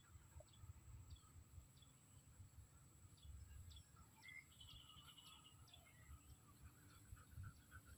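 Faint birdsong in the background: short, high chirps repeated about every half second, with a brief trill about halfway through, over a faint low rumble.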